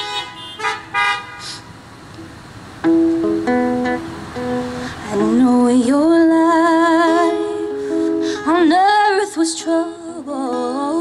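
A few short car horn toots in the first second or so, then an acoustic guitar starts picking notes and a woman begins singing with vibrato about five seconds in.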